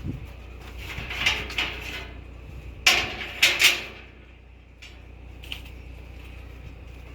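Metal parts clinking and clanking in two short clusters, the louder about three seconds in, over a steady low hum.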